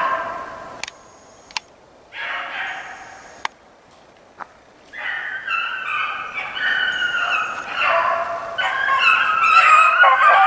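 A pack of beagles baying as they run a hare's track. A few scattered bays come first, then from about five seconds in several hounds give tongue at once in overlapping long bawls that grow louder as the pack closes in. A few sharp clicks fall in the quieter first half.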